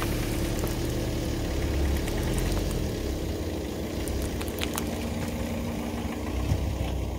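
Car engine idling steadily with a low rumble while the tyre slowly rolls onto and squashes a plastic drink bottle, with a few faint crackles as the plastic gives way.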